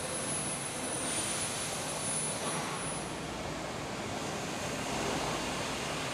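Steady rushing noise of a large assembly hall, with a faint thin high whine that fades out about three seconds in.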